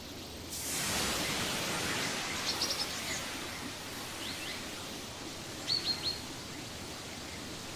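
Outdoor ambience: a broad rushing hiss swells about half a second in and slowly fades, with small birds chirping in short quick runs of three or four notes.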